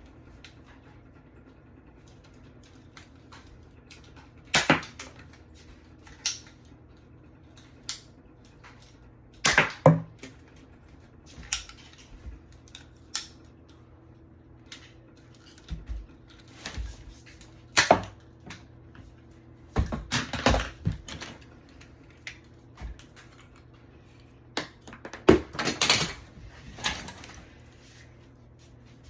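Irregular clicks and knocks, some in quick clusters, over a low steady hum.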